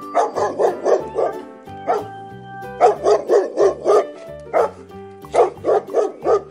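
Dog barking in quick runs of yaps, about five a second, in several bursts with short pauses between them, over steady background music.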